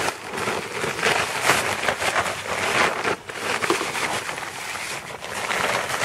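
Fine horticultural sand pouring out of a plastic bag onto compost, with the bag rustling as it is shaken. It makes a rushing hiss that swells and fades unevenly.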